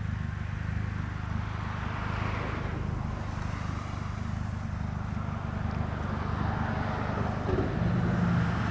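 Road traffic going past: a rushing swell of passing vehicles about two seconds in and again near the end, over a steady low hum.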